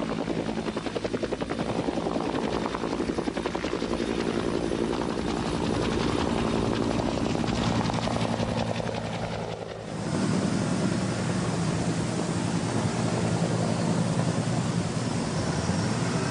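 Bell AH-1 Cobra attack helicopter running close by as it lifts off and hovers, its two-bladed main rotor beating in a quick, even pulse over the turbine whine. The sound jumps abruptly about ten seconds in, dipping briefly and then coming back steady and heavier.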